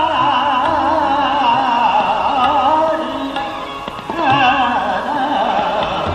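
Hindustani classical male voice singing Raag Nat Malhar in the Agra gayaki style: wavering, ornamented phrases over a steady drone, with a brief break a little after the midpoint before the phrase resumes.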